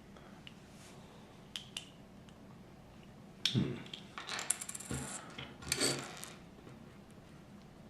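Small plastic LEGO pieces clattering and rattling as they are handled and rummaged through: a knock about three and a half seconds in, then two short spells of quick clicking rattles.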